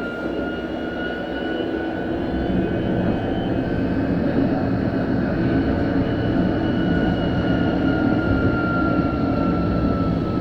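Bombardier Flexity Berlin tram running, its electric drive giving a high steady whine that drifts slowly in pitch over a low rolling rumble. The rumble grows louder over the first few seconds, then holds.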